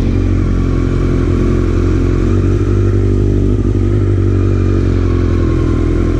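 Kawasaki Z900's inline-four engine running steadily at low revs as the motorcycle rolls slowly along.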